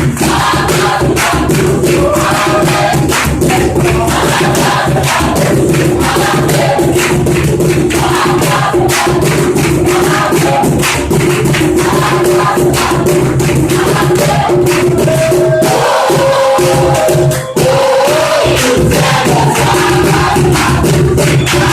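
Church choir singing a hymn together with a steady percussion beat.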